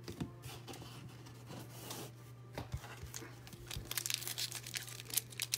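Foil wrappers of football trading-card packs being torn open and crinkled by hand, with scattered light clicks. The crinkling gets denser and louder over the last second or so, above a steady low hum.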